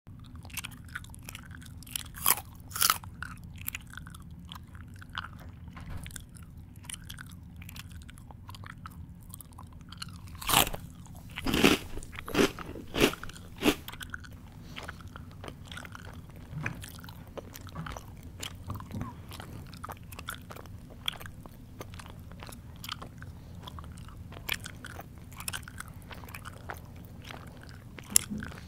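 A person chewing crunchy food close to the microphone: irregular sharp crunches, with a quick run of louder bites partway through, over a faint steady low hum.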